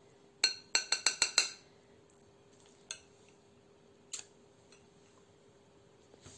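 Metal spoon clinking against a cut-glass salad bowl while stirring salad. A quick run of about six ringing clinks comes in the first second and a half, then single clinks about three and four seconds in and one more near the end.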